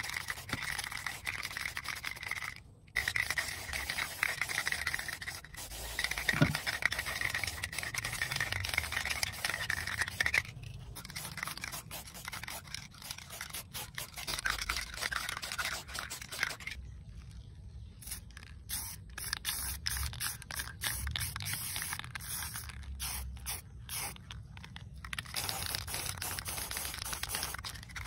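Aerosol spray-paint can spraying onto a sheet-metal amplifier chassis: long steady hisses with brief breaks, then a run of short spurts past the middle.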